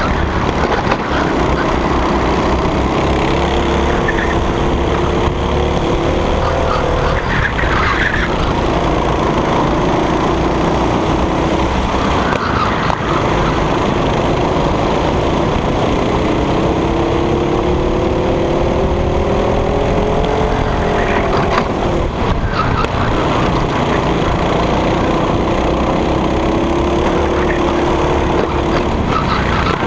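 Racing kart engine heard on board at speed, its pitch climbing steadily on the straights and dropping sharply as the throttle is lifted for the corners, several times. A steady low rumble of wind and chassis vibration runs under it.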